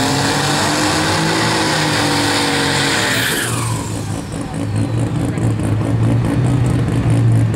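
Pickup truck engine held at high revs during a burnout, its pitch rising slowly over a loud hiss of spinning tyres. About three and a half seconds in the hiss fades and the engine drops to a lower, steady rumble.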